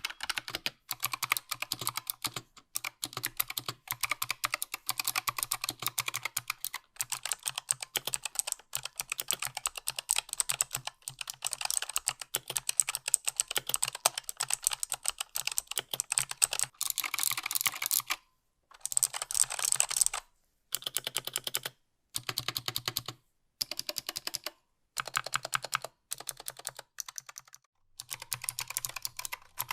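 Fast typing on a Razer Huntsman Mini keyboard: a dense, continuous patter of key clicks, which breaks into separate bursts with short silences between them in the second half.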